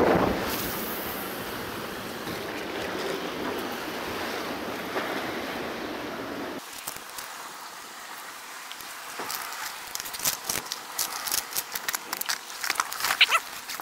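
Rough sea washing against rocks with wind, a steady rushing noise that cuts off abruptly about six and a half seconds in. After that, quieter surroundings with clicks and rattles from a clear plastic tackle box being handled, growing busier near the end.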